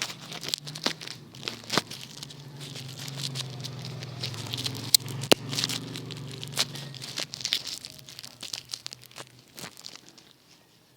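Plastic bubble wrap crinkling as it is handled, with sharp pops and cracks scattered through, the loudest one about five seconds in. It dies down near the end.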